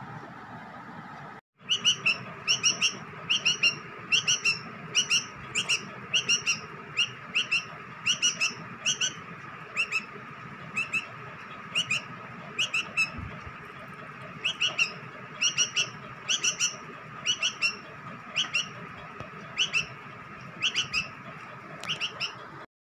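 A bird chirping: short high chirps repeated steadily, often in pairs, starting about a second and a half in.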